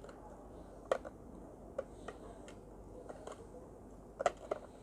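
Sparse light clicks and taps of a screwdriver and the blender's plastic housing being handled while its screws are undone, a few scattered ticks with a small cluster near the end.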